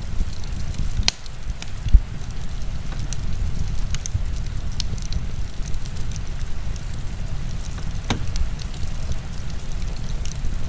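Crackling wood fire with scattered sharp pops over a steady low rumble of heavy rain, and one louder thump about two seconds in.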